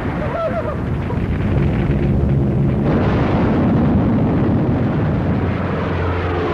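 Battle sound effects on an old film soundtrack: continuous rumbling of explosions, with orchestral music rising underneath.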